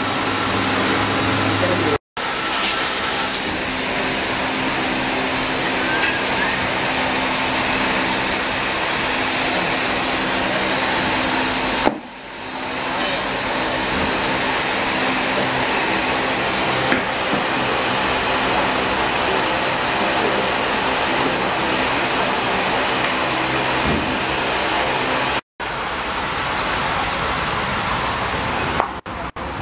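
Steady mechanical hum with a strong hiss, like garage machinery running, cutting out briefly twice and dipping once.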